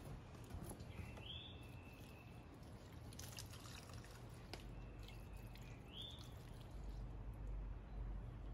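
Faint trickle and rustle of potting soil and petunia plants being handled by hand, with a few soft clicks. A high whistle that holds one pitch and then bends sharply upward sounds twice, about a second in and again near six seconds.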